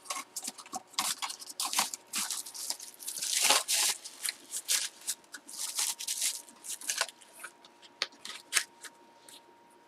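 Irregular rustling, crinkling and clicking of packaging and paper being handled by hand, with a longer rasping stretch about three and a half seconds in and fewer sounds near the end.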